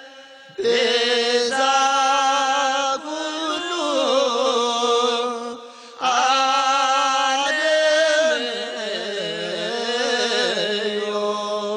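Ethiopian Orthodox Tewahedo Christmas hymn sung by a single voice in long, ornamented phrases with a wavering pitch. There are short breaks near the start and about halfway through.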